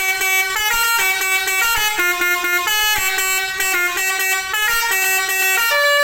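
Tour bus's Basuri telolet musical horn playing a quick tune of short stepped notes, a new note every third to half second.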